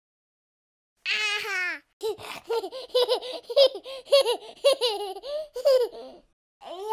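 A high baby voice gives a short falling squeal about a second in, then giggles in a quick run of rising-and-falling laughs for about four seconds.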